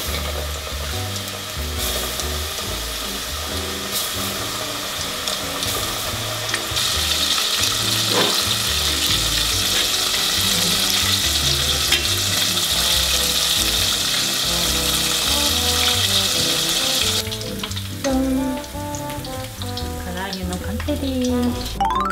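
Chicken karaage deep-frying in hot oil, fried at high temperature to crisp them: a steady sizzle that gets louder about a third of the way in and cuts off with about five seconds to go.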